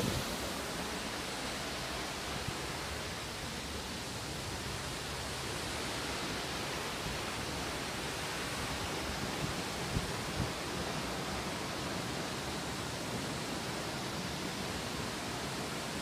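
Steady rush of a waterfall and its fast, swollen stream, with a couple of faint knocks about ten seconds in.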